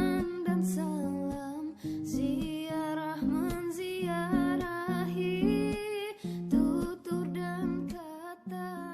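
Background music led by a plucked acoustic guitar, with a melody line and a repeating bass pattern.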